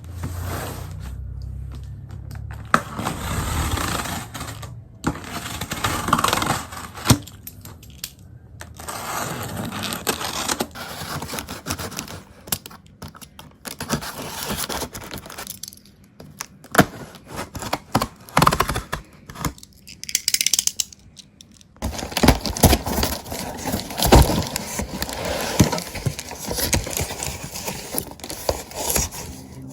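Close handling sounds: rustling and scraping, with many scattered clicks, knocks and small clinks.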